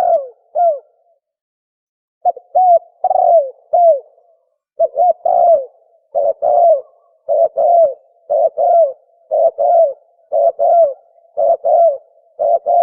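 Spotted dove cooing fast in the 'thổ còi' style: quick phrases of short, falling coo notes, about one phrase a second, after a brief pause about a second in.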